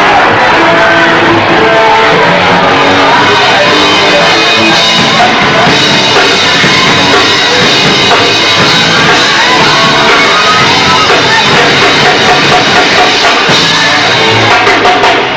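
A rock band playing live and loud: electric guitars, bass and a drum kit.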